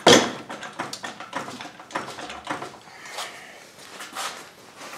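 Work noises under the hood: one sharp knock at the very start, then a run of irregular light clicks and scrapes of metal parts and tools being handled.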